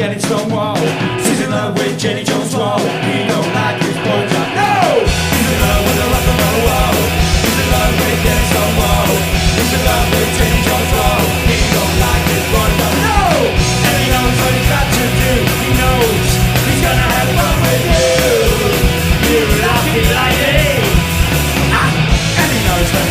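A live punk rock band playing with a singer. About five seconds in, the full band with bass comes in and the sound gets fuller and louder.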